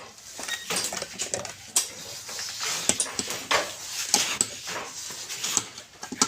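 Irregular clinking, knocking and scraping of hard objects being handled, a quick string of sharp clicks with no steady rhythm.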